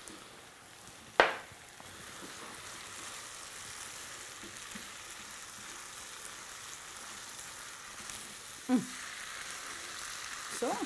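Pasta with tomatoes and capers sizzling steadily in butter and oil in a hot frying pan while it is tossed with a wooden spatula. There is one sharp knock about a second in.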